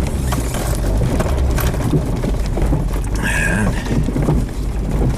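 A vehicle travelling over a rough dirt track: a steady low rumble with irregular knocks and rattles, and a brief squeak about three seconds in.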